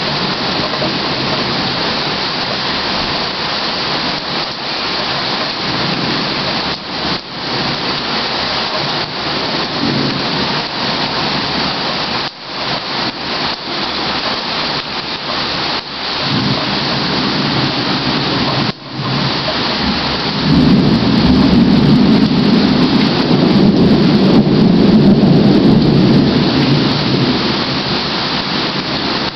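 Steady heavy rain in a thunderstorm, with a long, loud roll of thunder starting about two-thirds of the way through and rumbling for several seconds. The sound cuts out for an instant twice in the middle.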